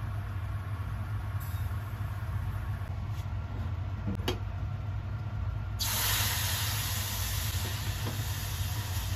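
Sugar and water heating in an aluminium saucepan on a gas stove: a steady low hum, joined about six seconds in by a loud, steady hiss, with one light click a little before it.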